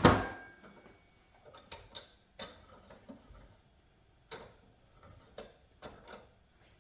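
A sharp metallic clank with a short ring at the start, then a scattering of light, irregular metal clicks and taps as a wrench, a bench vise and an aluminium hose fitting are handled.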